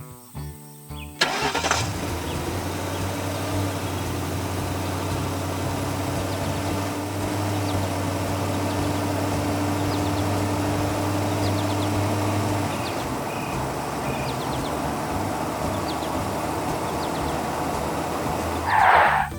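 Car engine starting about a second in and then running steadily, with a loud whoosh near the end.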